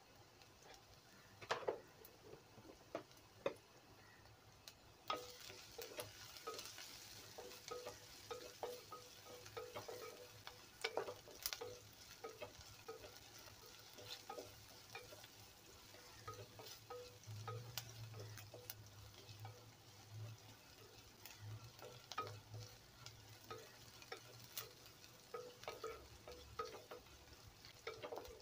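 Wooden spatula stirring shallots, garlic and curry leaves frying in oil in a clay pot, with frequent sharp knocks of the spatula against the pot. A faint sizzle of the oil comes in about five seconds in, as the shallots and garlic are sautéed toward brown.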